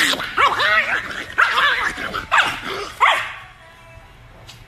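A chihuahua yowling in short, high barks, about five calls that rise and fall in pitch over the first three seconds, then quieter.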